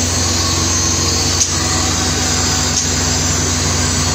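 Suzuki Cultus's swapped-in M13 1.3-litre four-cylinder engine idling steadily just after starting, with a brief click about a second and a half in.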